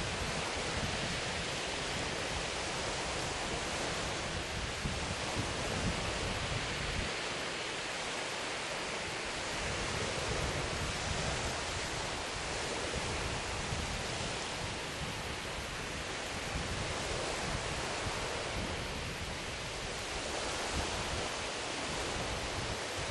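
Sea waves washing on a shingle beach, a steady hiss of surf, with wind noise on the microphone; the low wind rumble eases for a couple of seconds about eight seconds in.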